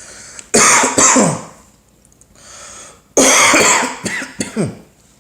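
A person coughing hard in two fits, the first about half a second in and the second about three seconds in.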